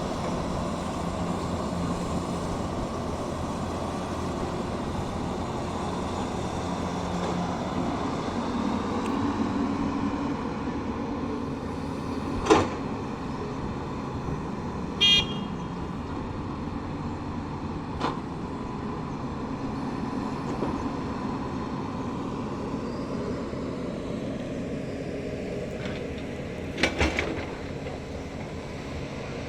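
Diesel engine of a Tata Hitachi excavator running steadily under work, with a few sharp clanks and a short horn beep about halfway through.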